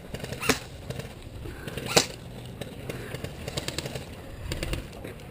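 Two sharp clicks about a second and a half apart, the second the louder, followed by a scatter of fainter ticks and clatter.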